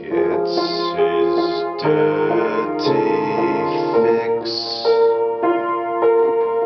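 Upright piano played, held notes and chords ringing over one another as new ones are struck every half second or so.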